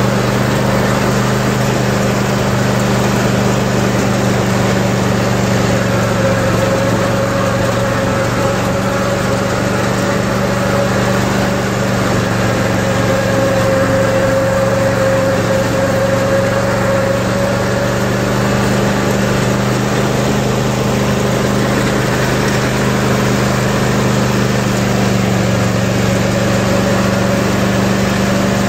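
Cub Cadet RZT zero-turn riding mower's engine running steadily while it drives across a lawn towing a sprayer cart.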